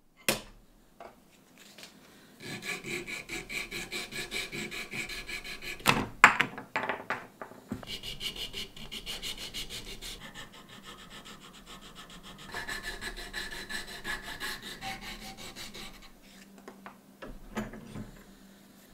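Small hand file rasping on a carved wooden lure blank clamped in a vise, in fast, even back-and-forth strokes with a scraping edge. A few louder knocks come about six seconds in, and the strokes stop shortly before the end.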